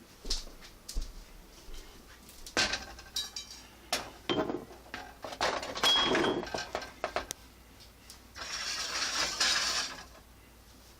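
Pots, pans and utensils clattering and clinking as cooking gear is handled, with a run of knocks and clinks in the middle and a short steady hiss near the end.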